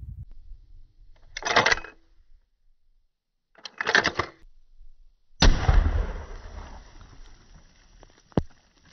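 A single high-powered rifle shot from a Rossi 1892 lever-action in .454 Casull, a sharp report about five and a half seconds in that trails off over several seconds. Two shorter bursts of noise come before it.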